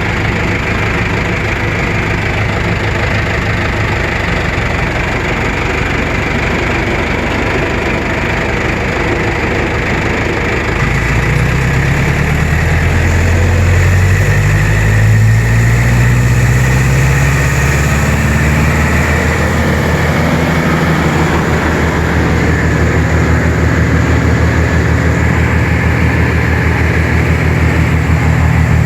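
Brush Bandit 200+ XP wood chipper's engine running steadily at low idle, then throttled up about eleven seconds in: the engine speed climbs and wavers for several seconds before settling into a faster, steady run.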